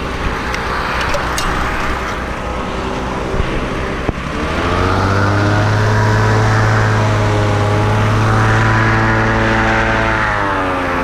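Boat engine running low, then speeding up about four seconds in and holding a steady higher pitch, easing off slightly near the end.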